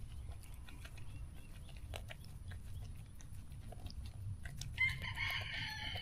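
A chicken gives one drawn-out call lasting about a second near the end, over faint scattered clicks of a pig and hens feeding from a bowl and a low background rumble.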